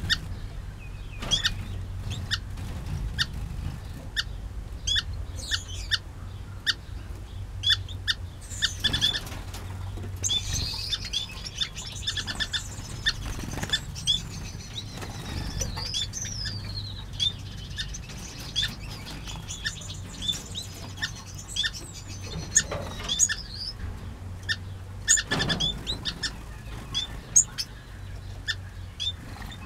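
Aviary finches and waxbills calling with many short, high chirps throughout, with a few brief flurries of wing flapping.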